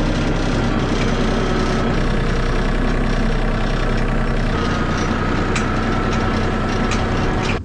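A heavy farm-machine engine running steadily, with light rattles. A thin whine joins in about halfway through.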